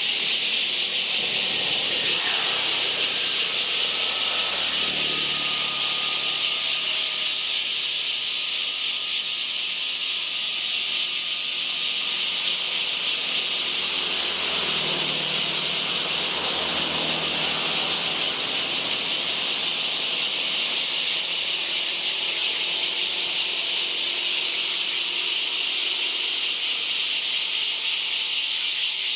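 Kaohsiung bear cicadas (Cryptotympana holsti) calling: a loud, high-pitched, steady buzzing hiss that holds unbroken at one level.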